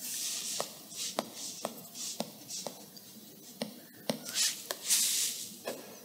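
Stylus tip tapping on an iPad's glass screen, about two taps a second, with soft swishing rubs across the glass between the taps.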